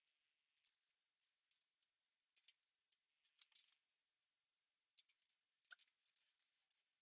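Faint, irregular metallic clicks and ticks of a wrench working the rocker arm adjusting nuts on a small-block Chevy 400 during a valve adjustment.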